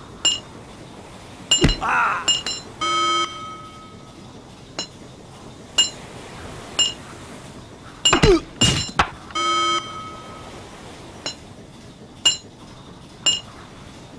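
Steel hand hammer striking the steel bolts of a manhole cover: a series of sharp metallic clinks, each ringing briefly, about one a second. The hammer is one whose head has worked loose. Two short buzzing tones, around 3 and 10 seconds in, and a couple of brief gliding voice-like sounds are mixed in.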